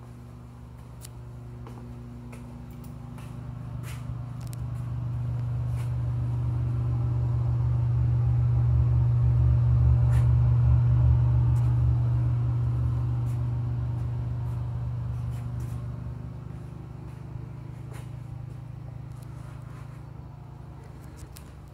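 Steady low mechanical hum, like a fan or motor running, that swells to its loudest about halfway through and then fades again. Scattered light clicks and knocks sound over it.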